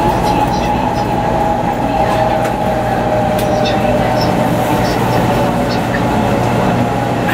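Cabin of a 500 series Shinkansen running at speed: a steady rush and rumble of wheels, track and air, with a tone that drifts slowly in pitch.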